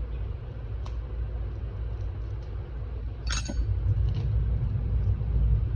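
Steady low rumble, with one short crinkle of packaging being handled about three seconds in.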